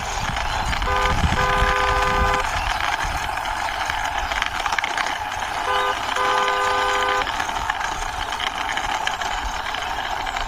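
Car horn honking in pairs, a short toot then a longer one, twice, over a steady rushing noise of a car driving.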